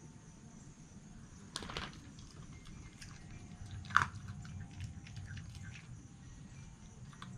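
Red fox chewing and crunching food, with a few sharp crunches; the loudest comes about four seconds in.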